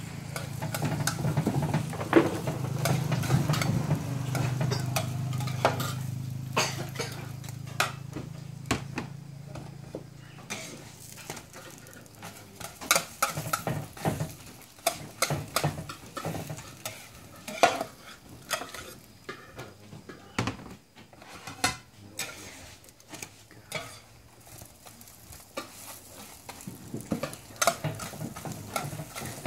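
Metal spatula scraping and clacking on a hot flat griddle as roti canai are worked in oil, with frying sizzle underneath. A low steady hum runs through the first ten seconds or so and then fades out.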